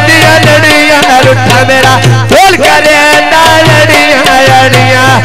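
Punjabi folk music: a hand drum keeping a steady, repeating beat under a melody of long held notes with sliding glides in pitch.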